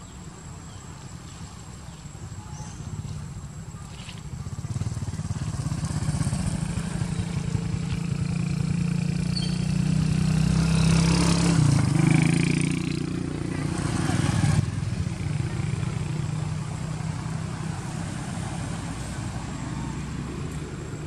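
A motor vehicle engine passing by: it grows louder over several seconds, drops in pitch at its loudest point about halfway through, then fades away.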